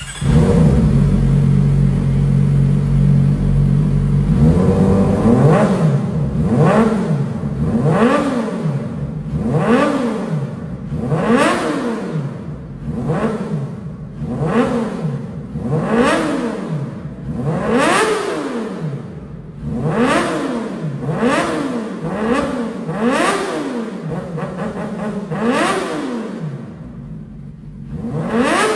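CFMOTO 500SR motorcycle engine heard through its exhaust. It idles for about four seconds, then is blipped again and again, roughly every second and a half, each rev climbing and dropping straight back to idle.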